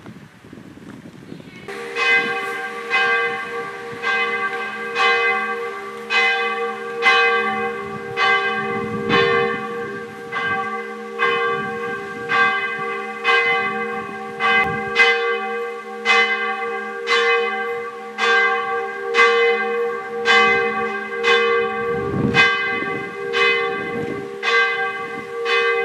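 Church bell ringing: stroke after stroke at an even pace, starting about two seconds in, each stroke's hum carrying over into the next.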